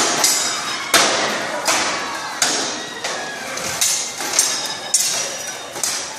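Steel swords clashing against plate armour and shields in a staged knights' fight: about ten sharp metallic strikes at an irregular pace, roughly one or two a second, each ringing briefly and echoing in a large hall.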